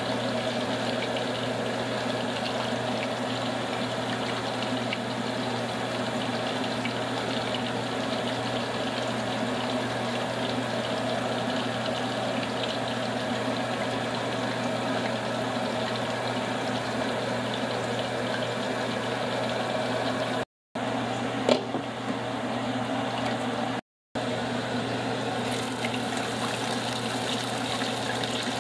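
Steady mechanical hum with a constant low drone, broken twice by brief dead silences. Near the end, the hiss of food deep-frying in a pot of oil joins it.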